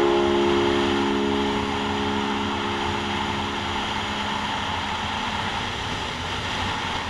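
Yamaha MT-03 motorcycle cruising at highway speed, heard from a helmet-mounted camera: a steady rush of wind and road noise over the engine. A few steady tones fade out by about halfway through.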